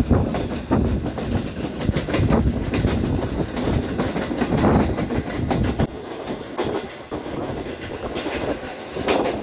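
Passenger train running at speed, heard from aboard a coach: a steady rumble of wheels on rails with repeated clattering knocks.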